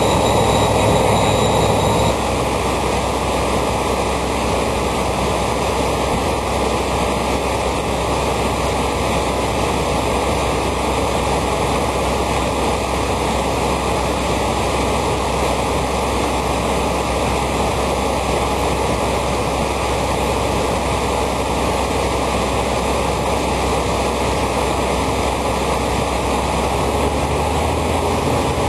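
Heavy farm machinery running steadily: a constant rush with a low drone underneath. A high whine and a deeper hum drop out about two seconds in.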